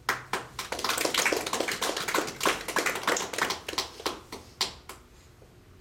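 Applause from a small group of people, hand claps starting all at once and thinning out and dying away after about five seconds.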